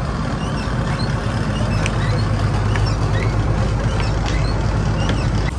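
A fishing trawler's engine running steadily with a low drone. Scattered short, high chirps or squeaks sound over it.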